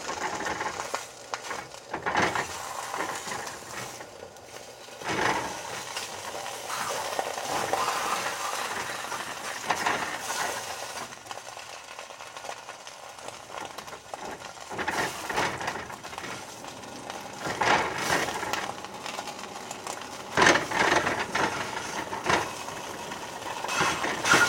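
Bologna slices sizzling in a hot skillet, with occasional knocks and scrapes of a rubber spatula against the pan as the slices are turned.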